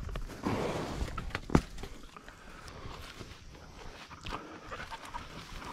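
Footsteps crunching through grass and brush, with a tracking dog panting and fabric rustling close to the microphone. A sharp crack comes about a second and a half in, like a twig snapping.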